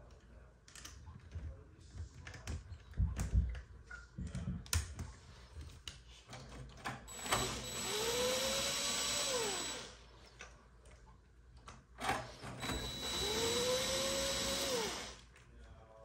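Cordless drill turning a 7 mm socket, run twice for about two and a half seconds each, to take the nuts off the dishwasher heating element's wire terminals. The motor's pitch rises as it spins up and drops as it stops. Before the runs come small clicks and knocks of handling the socket and wires.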